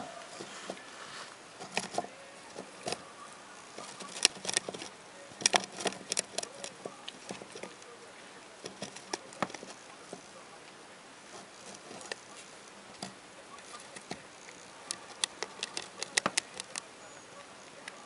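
Young Netherland Dwarf rabbit nibbling and gnawing a dried loofah sponge: irregular crisp clicks and crunches of the fibres, in busy clusters about four to seven seconds in and again near the end, with sparser nibbles between.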